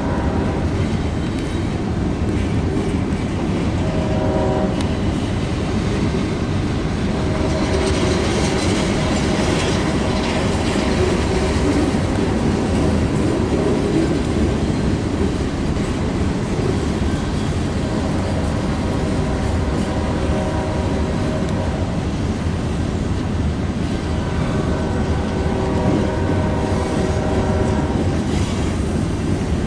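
Freight train cars rolling slowly past, a steady rumble of steel wheels on rail. A ringing tone comes and goes several times over it.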